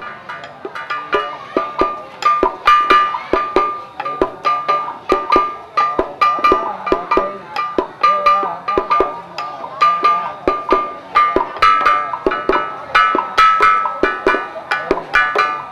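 Vietnamese traditional ritual music: sharp wooden clicks, about three a second, keep the beat under short repeated high notes from a string instrument.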